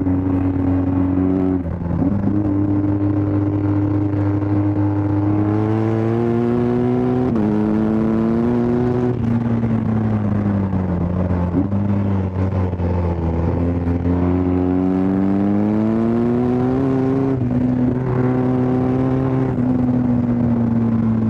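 BMW R1250 GS Adventure's 1254 cc boxer twin pulling hard, its pitch climbing through the revs and dropping back sharply at each quickshifter upshift, several times. Around the middle the revs fall away for a few seconds under hard braking, then the engine pulls up through the gears again.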